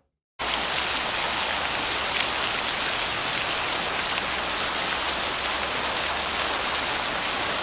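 Recorded sound effect of steady heavy rain, an even hiss that starts abruptly about half a second in after a moment of silence.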